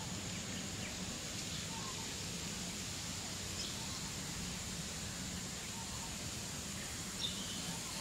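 Steady distant jet-like drone coming from Darwin Hospital, with a steady high hiss above it. A few short bird chirps break through, the loudest about seven seconds in.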